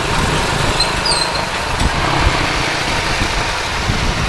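Rusi SS250 sport bike's engine running at low speed in slow traffic, heard from the rider's helmet camera as a steady, noisy engine hum.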